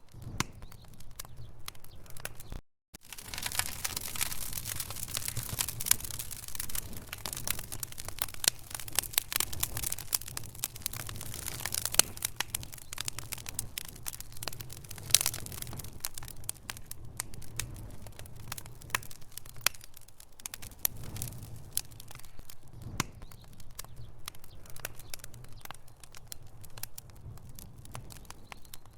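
Wood fire burning in a fireplace: logs crackling with a dense run of irregular pops and snaps, thinning out in the second half. The audio drops out briefly to silence about three seconds in.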